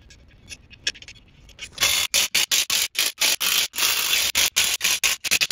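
A few light metal clicks as wheel nuts are started on the studs. About two seconds in, a power wrench starts up in rapid short bursts, several a second, running the nuts down to clamp the halves of the two-piece military wheel together.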